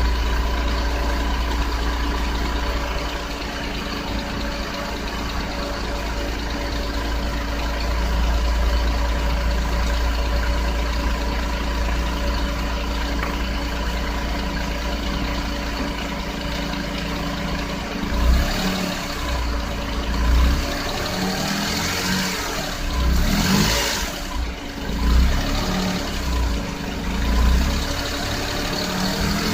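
Nissan Otti (H91W) kei car's three-cylinder engine running at idle, with a steady hum and whine from the engine compartment: the abnormal engine-room noise the owner is recording. From about two-thirds of the way through, irregular low thumps and short bursts of noise join in.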